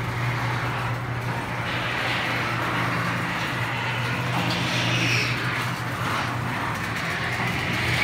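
Craftsman ½-horsepower chain-drive garage door opener running steadily with a constant motor hum as it moves the door.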